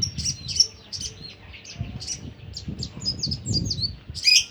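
Sogon songbird singing a fast, continuous run of short high chirps in the rolling style of a white-eye (pleci), with one louder call near the end.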